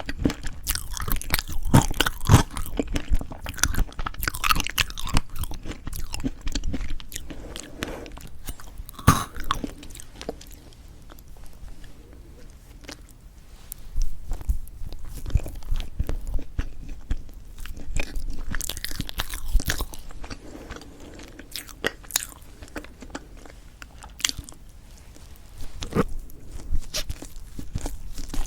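Close-miked eating of a strawberry chocolate fresh-cream cake: bites and chewing with many short, sharp mouth clicks, easing off in a couple of quieter stretches between bites.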